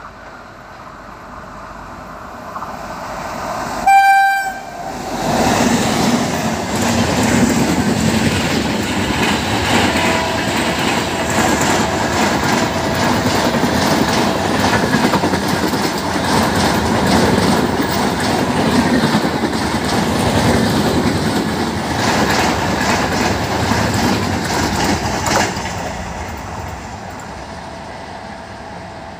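A WAP-7 electric locomotive gives a short horn blast about four seconds in. Its express train then passes at speed with the wheels clattering over rail joints. The noise fades near the end as the train draws away.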